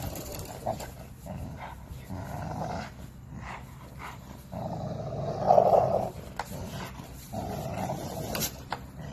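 American Bully dog growling in repeated bursts as it grips and tugs on a rope toy hanging from a spring pole, the play growls of a tug game. The loudest growl comes a little past halfway.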